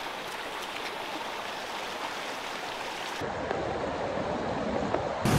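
Glacier-fed mountain stream rushing steadily over rocks. About three seconds in the sound changes abruptly to a fuller, deeper rush of water tumbling through a small rocky cascade.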